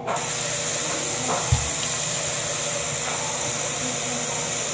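Sink tap turned on and running steadily into a bowl, a steady hiss of water that starts abruptly as the tap opens. A soft bump about a second and a half in.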